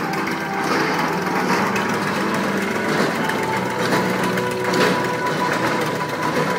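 Small engine running steadily, driving the water pump of a hand-turned pile-boring rig.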